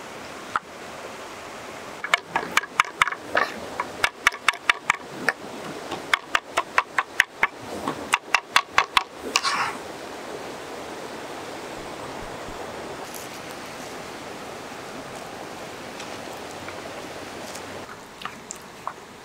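Cleaver-style knife chopping tomatoes on a wooden cutting board: a fast run of sharp knocks, about three or four a second for some seven seconds, ending in a short scrape of the blade. A river rushes steadily underneath, with a few light clicks near the end.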